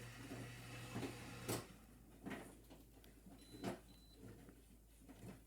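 Handling noise: a few scattered knocks and rustles from wire and a hand-held camera being handled, the loudest about a second and a half in. A low hum underneath stops at that knock.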